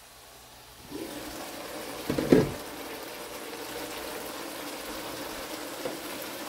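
String beans simmering in sauce in a stainless wok, a steady bubbling that becomes louder once the glass lid is lifted off about a second in. A loud clatter of the lid being handled follows about two seconds in.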